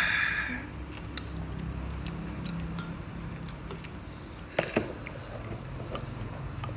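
Eating at the table: occasional light clicks of chopsticks against a black noodle pot, with two sharper taps close together about four and a half seconds in, over a steady low hum. A short, louder noise comes right at the start.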